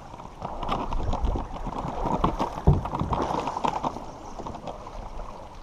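Canoe being paddled through a creek: water splashing and churning, with scattered knocks and one louder knock about two and a half seconds in.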